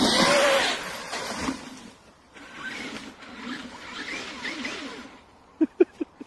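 Brushless electric RC monster truck driving in sand: motor whine and tyres churning, loudest at the start and fading within about a second, then running quieter and uneven. Near the end come a handful of short, sharp blips.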